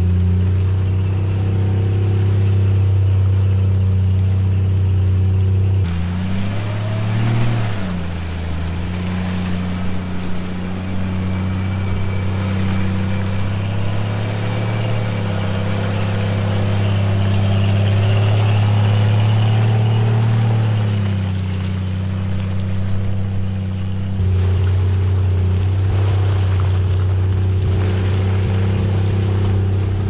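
A Jeep's engine runs steadily at low speed under load as it tows a stuck SUV through mud on a strap. The pitch dips and rises briefly about seven seconds in.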